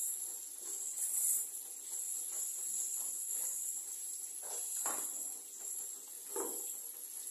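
A steady high-pitched hiss, with a few soft knocks about two thirds of the way through and near the end.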